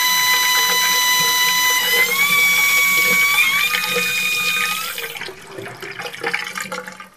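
Wall-mounted two-handle mixer tap whistling loudly with running water, a single high tone that steps up in pitch twice as the knob is turned. About five seconds in the whistle fades and only a quieter, crackling trickle of water is left, dying away as the tap is closed.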